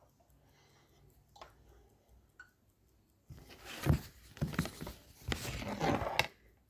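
Handling noises on a sewing machine: a couple of faint clicks, then about halfway in a few seconds of irregular knocks and rustling as parts are moved by hand.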